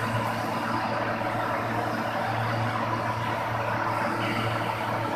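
Steady low machine hum with an even hiss over it during GTAW (TIG) welding of a pipe joint: the welding power source running while the arc burns.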